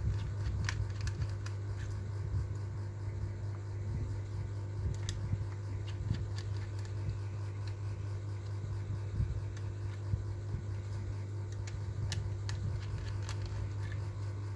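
A steady low hum with scattered small clicks and taps, irregularly spaced.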